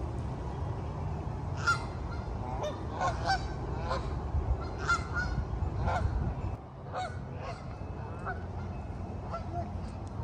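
A flock of Canada geese honking, short calls one after another about every second, over a low steady rumble.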